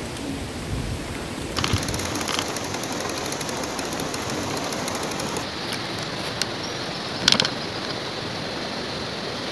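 Steady rushing of a mountain river. About two seconds in, a run of fast clicking starts and lasts a few seconds, and a few sharp clicks come later, the loudest a short cluster near the end.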